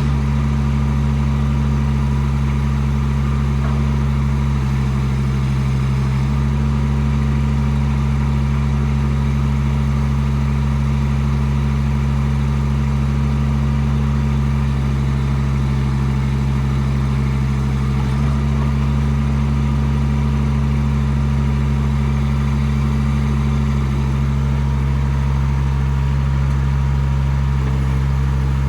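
Chinese mini excavator's engine running steadily while the boom and arm are worked. The engine note shifts slightly under hydraulic load about five seconds in and again about two-thirds of the way through.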